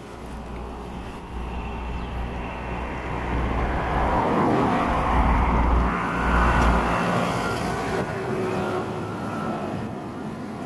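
A road vehicle passing by: its noise swells, is loudest about halfway through, then fades away.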